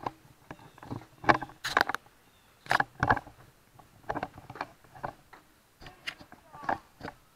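Irregular clicks and knocks, a dozen or so spread unevenly, some with a brief ring, dying away near the end.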